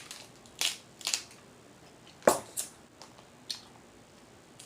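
Mouth smacking while chewing buttery shrimp: about five short wet smacks, the loudest about two seconds in.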